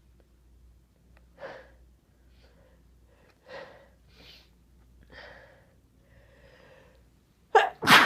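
A person taking short, catching breaths about a second apart as a sneeze builds, then sneezing suddenly and loudly right at the end.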